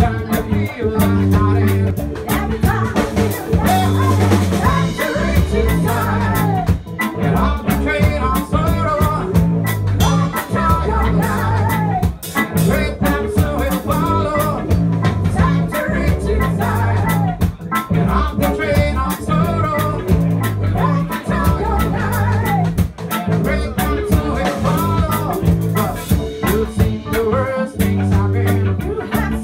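Roots reggae band playing live: electric guitars, bass guitar and drum kit with a steady beat.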